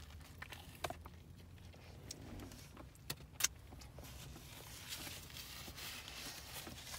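Faint sounds of a man chewing a mouthful of sandwich, with a few short sharp clicks, the loudest about three and a half seconds in, over a steady low hum.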